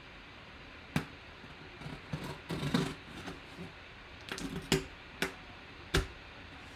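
Pocket knife slitting the packing tape along a cardboard box: short scraping cuts, with a few sharp clicks and taps of the blade and box, one about a second in and three more in the last few seconds.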